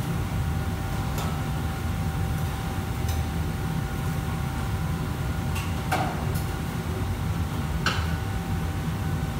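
Steady low rumble of commercial-kitchen wok burners and the extraction hood above them, with a few sharp metallic clanks of a ladle against a wok, the loudest about six and eight seconds in.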